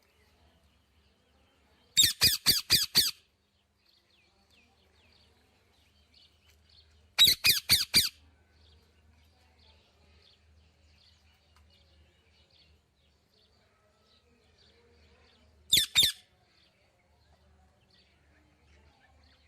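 Parrot squawking in three bursts of rapid repeated calls: about five calls two seconds in, four or five more about seven seconds in, and a quick pair near the end. Faint small chirps run between the bursts.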